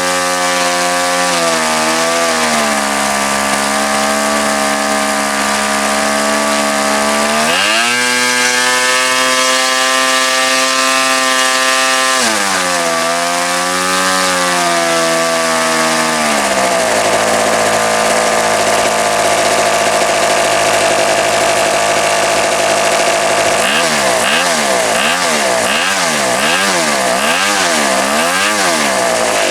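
PAW .29 model diesel engine running on the bench with a muffler, turning an 11-inch propeller. Its speed rises sharply about eight seconds in, drops back after a few seconds and falls again a little later, then swings quickly up and down several times near the end. The owner says it is running fine, though possibly still a bit rich.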